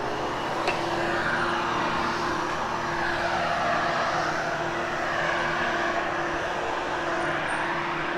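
Vacuum cleaner running steadily over carpet, a constant motor hum under a hiss that swells and eases every couple of seconds as it is pushed back and forth.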